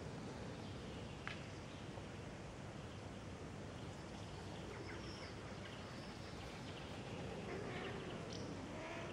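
Steady outdoor background noise with a few faint high chirps. Near the end, cats mating begin a low, wavering yowl.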